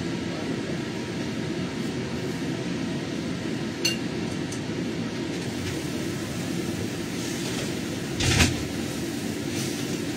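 Steady low kitchen hum over stovetop cooking in a wok, with a light clink about four seconds in and a louder clatter of the wok's glass lid a little past eight seconds.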